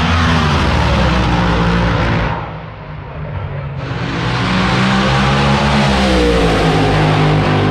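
Drag race car engine at full throttle passing down the strip, loud, its pitch falling as it goes by. The sound drops away abruptly a little over two seconds in, then swells back up in a second loud pass whose pitch falls again near the end.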